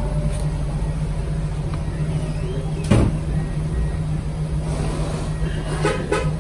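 Steady low machine hum running throughout, with a single sharp knock about three seconds in and a few quick clicks near the end.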